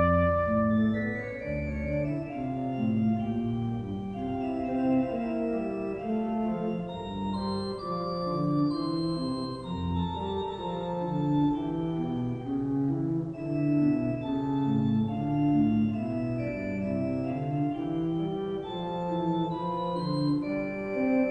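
Background music played on an organ: sustained chords and moving notes.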